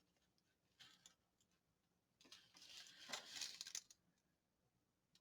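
Paper being handled: a short faint rustle about a second in, then a longer crinkly rustle with small clicks from about two to four seconds in.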